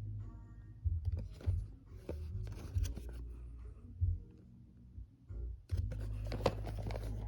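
Cardboard packaging of an Echo Dot being handled and opened: irregular scraping, rustling and tearing, busiest about six seconds in, over a low steady hum.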